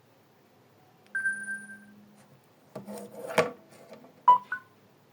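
Samsung Galaxy Feel smartphone playing one of its built-in tones through its speaker: a held beep about a second in, a short noisy burst in the middle, then two quick blips, the second higher.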